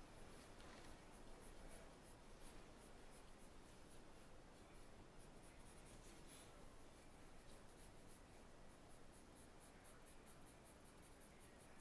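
Faint scratching of a pencil shading on paper: quick back-and-forth strokes, several a second.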